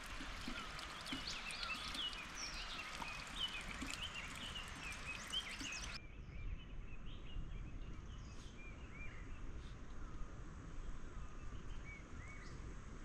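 Birds chirping, many overlapping short calls at once, thinning to a few scattered calls after an abrupt change about six seconds in, over a steady low background hum.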